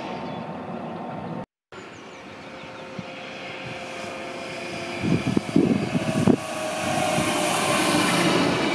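Red DB Talent 2 electric multiple unit approaching and passing underneath: a steadily rising rush of wheels on rail and air, with a faint steady electric whine. There are a few low thumps about halfway through, and the rush is loudest near the end as the train passes below.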